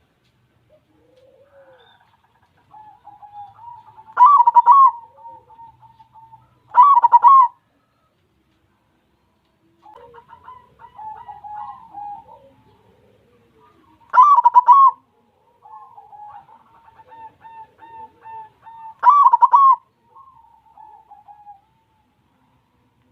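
White zebra dove (perkutut putih) cooing: runs of soft, quickly pulsed coos broken by four loud accented phrases, each shorter than a second, spaced a few seconds apart.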